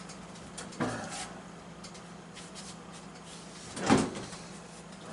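A kitchen door or cupboard shut with a sharp knock about four seconds in, after a softer knock about a second in, over a steady low hum.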